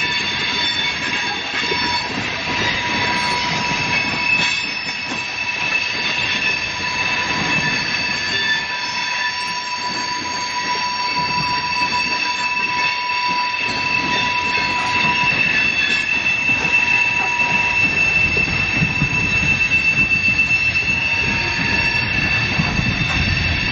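Coal hopper cars of a CSX freight train rolling past, their steel wheels squealing against the rail in several steady high-pitched tones over the low rumble of wheels on track. A rhythmic clatter of wheels over the rail grows louder near the end.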